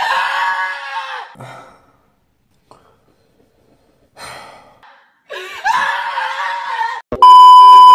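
A person's voice giving a drawn-out wordless cry, then a second one a few seconds later, with a short breathy sound between them. Near the end a loud, steady beep tone cuts in.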